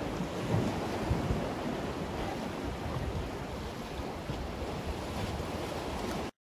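Sea waves washing and splashing against the concrete breakwater blocks, with wind buffeting the microphone. The sound cuts out abruptly near the end.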